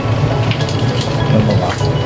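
Fish stew boiling in a wide pan on a stove: irregular bubbling and sputtering over a steady low hum.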